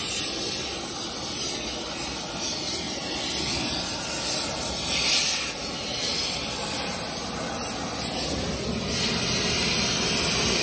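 Oxy-fuel torch flame hissing steadily while it heats an aluminum bar back up to forging heat.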